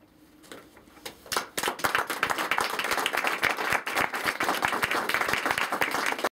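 Audience applauding: scattered claps begin about a second in and quickly build to steady, dense clapping, which cuts off suddenly at the end.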